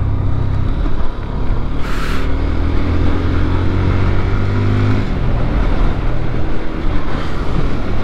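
Sport motorcycle engine running under way, its pitch climbing gently for a few seconds and then easing off about five seconds in, over steady rushing noise. A short hiss comes about two seconds in.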